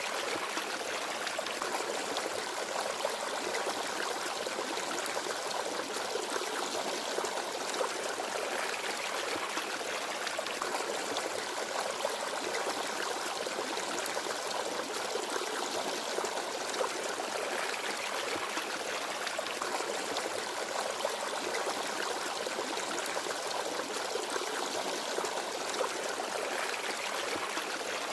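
Small forest stream babbling and trickling steadily over stones.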